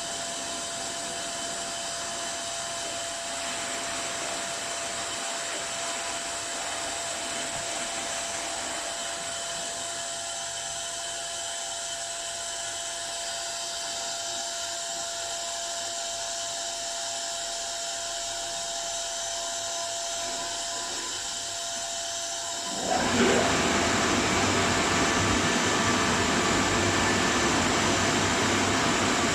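Tunnel car wash machinery running with a steady whir and a thin steady tone. About three quarters of the way through it suddenly grows louder into a fuller rushing noise.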